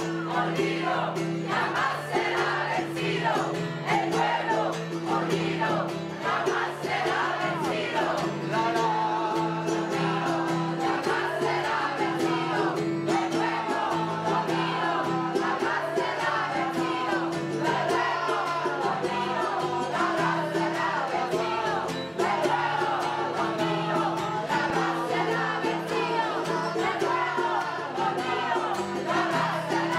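A mixed pop choir of women's and men's voices singing a song together, over steady held low notes that change every couple of seconds.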